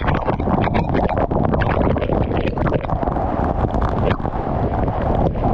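Waterfall crashing close to the microphone: a loud, steady rush of falling water with irregular crackling and buffeting as spray and water hit the mic.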